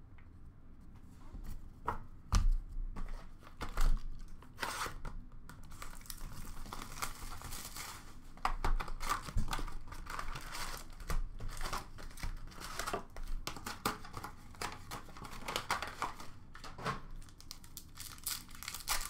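An Upper Deck SP Authentic hockey card pack being torn open and its wrapper crinkled, with the cards handled. It starts with a few sharp knocks about two to four seconds in, followed by near-continuous crackling and tearing.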